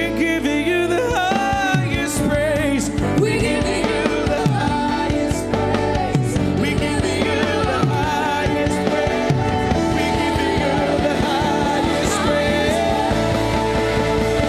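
Live worship band playing loud rock-style music, with drums and bass under a singer's sliding, wordless vocal runs.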